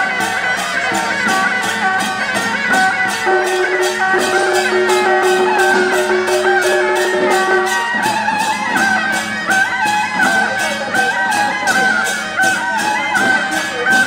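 Traditional-style procession music with a steady beat of about three strokes a second under a wavering high melody. A long held lower note sounds through the middle.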